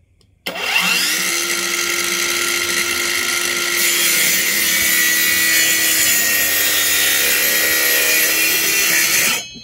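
A Nagawa 5.5-inch cordless brushless mini circular saw starts about half a second in, spins up to a steady high whine and cuts through plywood. The cutting noise grows brighter about four seconds in, and the saw stops near the end.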